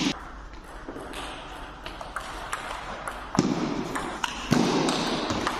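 Table tennis rally: the celluloid-type plastic ball clicking back and forth off bats and table, a quick series of sharp ticks about every half second. In the second half a broad rush of background noise swells up twice beneath the clicks.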